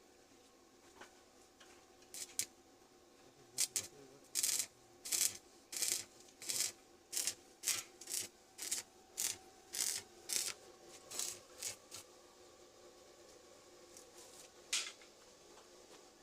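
A hand tool scraping metal in a run of even strokes, about two a second. There are a few lighter scrapes before the run and a single one near the end.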